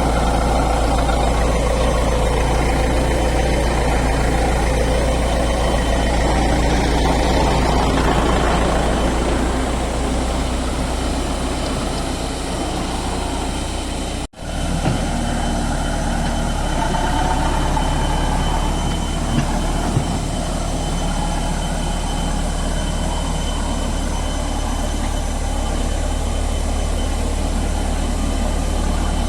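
Heavy diesel engine of a construction machine running steadily with a deep rumble. The sound drops out for an instant about halfway through, and two light knocks follow a few seconds later.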